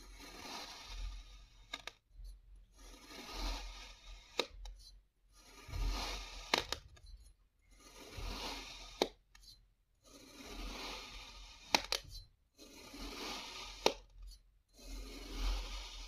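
Metal blade slicing down through kinetic sand, one cut about every two and a half seconds: each cut is a gritty crunching scrape, most ending in a sharp click.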